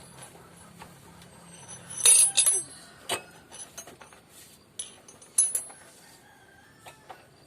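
Metal hand tools clinking and knocking while the old horn is unbolted from a motorcycle: a series of sharp, ringing metallic clinks, the loudest cluster about two seconds in.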